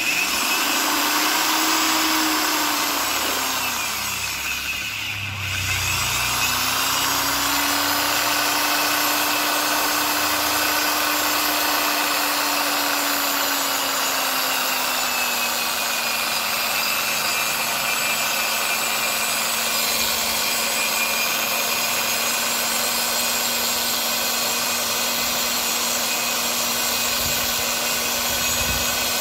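Electric drill spinning a polishing wheel against an aluminium scooter deck: a steady motor whine over a rubbing hiss. About four seconds in the drill slows down and then speeds back up, and about halfway through its pitch settles a little lower.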